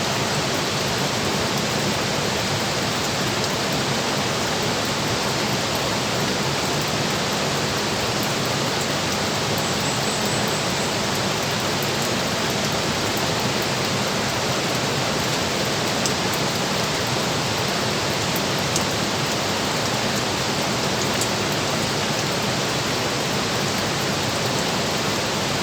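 Steady, even rush of water pouring through the dam, with no change in level throughout.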